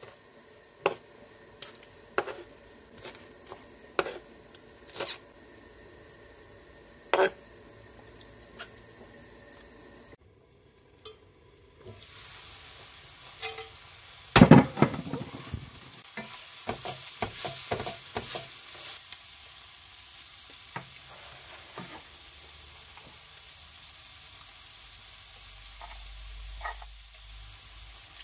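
A knife chopping fresh coriander on a wooden cutting board, sharp knocks about once a second. After a brief gap, mushrooms and vegetables sizzle and fry in an enamelled pan, with a burst of loud utensil knocks and scraping from stirring about halfway through.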